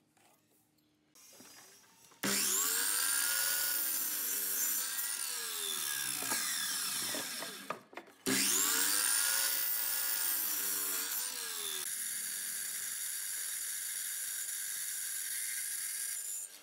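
Electric miter saw spinning up and crosscutting wooden boards, twice, its motor whine rising and falling as the blade goes through. From about twelve seconds in a steadier machine noise follows: the hollow-chisel mortiser working into the timber.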